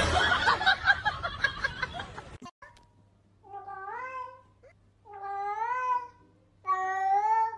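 A cat meowing three times, long drawn-out meows of about a second each, over a faint steady low hum. Before them, for the first two seconds or so, a loud jumbled noise that cuts off abruptly.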